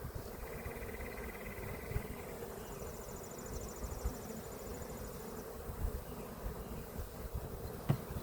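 A mass of Carniolan honeybees from a package buzzing, a steady droning hum. Faint rapid trills sound twice in the first half, and there is one sharp click near the end.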